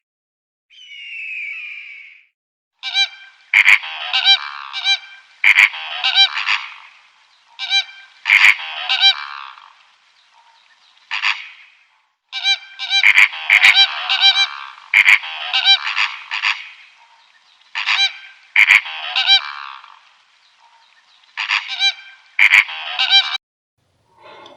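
A bird honking over and over: loud honks in quick runs of several calls, with short pauses between the runs.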